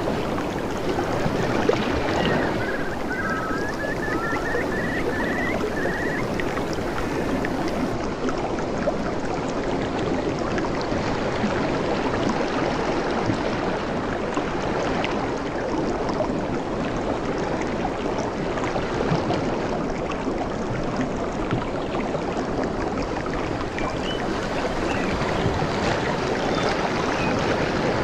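Steady rushing water. A few seconds in, a bird chirps a quick series of short rising notes.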